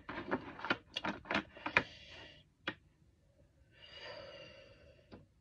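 Small cosmetic containers and lids clicking and knocking as they are handled, a quick run of sharp clicks in the first two and a half seconds and one more just after. About four seconds in comes a breathy blow through pursed lips, lasting about a second.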